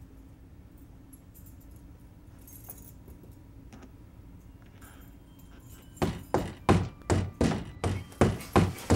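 A faint low hum, then about six seconds in a fist pounding hard on a door: about ten heavy blows in quick succession over three seconds.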